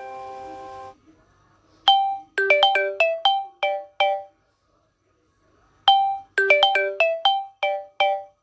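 Samsung Galaxy S6 stock ringtone playing. A short melodic phrase of about nine quick, sharply struck notes plays twice, with a gap of under two seconds between. The sustained chord of the previous ringtone cuts off about a second in.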